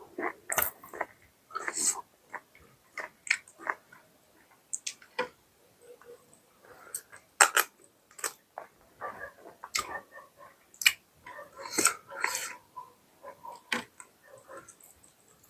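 Close-up eating sounds: wet chewing and lip smacks at an irregular pace as mutton curry and roti are eaten, with some louder smacks here and there.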